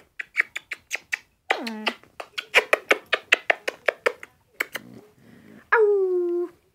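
Puppy yapping in quick runs of short barks, about four or five a second, with a yelp that falls in pitch partway through. Near the end it gives one long howl.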